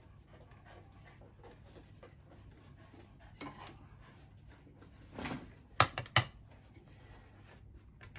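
Scattered small clicks, scrapes and rattles of a padlock being taken apart by hand, with three sharper clicks a little before and after six seconds in.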